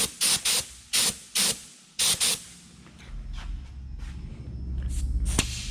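Short, quick bursts of pressurised spray hissing, about eight in the first two and a half seconds, followed by a low rumble that builds up.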